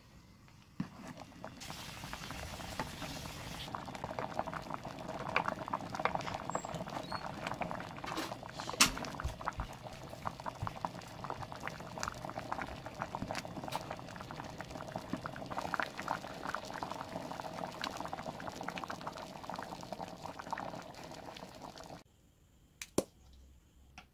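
A pot of curry boiling hard: dense bubbling and popping that stops abruptly about two seconds before the end. There is a short hiss about two seconds in and a single tap near the end.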